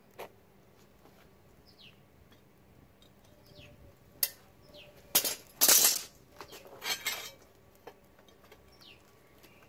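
Steel foundry tongs clinking and scraping against a crucible of molten copper: a sharp clink near the start, another about four seconds in, then a louder scrape of about a second and a shorter one after it. Small birds chirp several times in the background.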